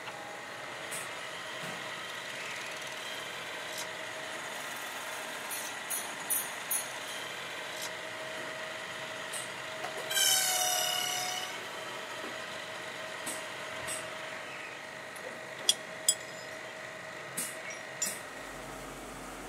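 Metal lathe running with a steady hum, with scattered clinks of metal parts being handled. About ten seconds in, a metal part rings out loudly and dies away over a second or so.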